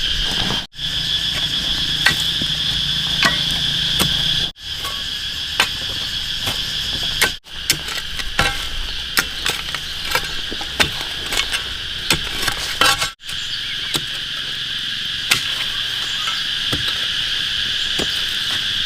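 Steady, high-pitched chorus of crickets or similar insects, with scattered sharp knocks and taps from work nearby. The sound drops out briefly four times.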